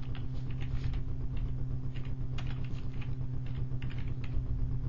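Typing on a computer keyboard: a run of quick, irregular key clicks over a steady low hum.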